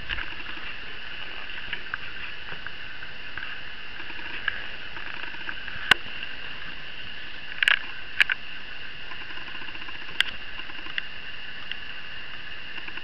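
Steady background hiss broken by a few sharp taps and knocks. There are four clear ones, two of them close together just past the middle.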